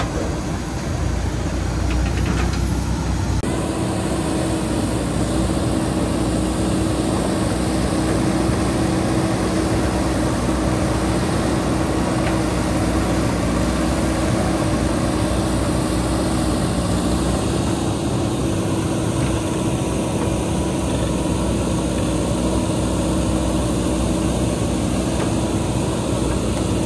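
Tractor diesel engines running for the first few seconds. After a sudden change about three seconds in, a JCB 3DX backhoe loader's diesel engine runs steadily with an even drone while the backhoe digs.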